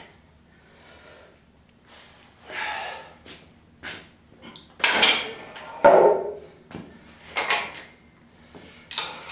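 Iron weight plates being handled and loaded onto a barbell sleeve in a power cage: scattered metal clanks, scrapes and knocks, loudest about five and six seconds in.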